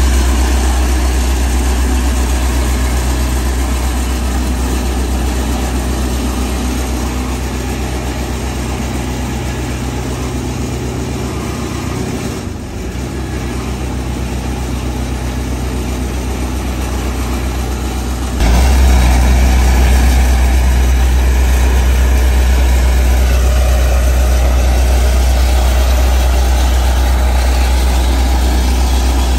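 Small double-drum ride-on roller running steadily with a strong low hum while it compacts base rock and then a fresh asphalt patch. The sound dips briefly just before the halfway point and steps up louder about two-thirds of the way through.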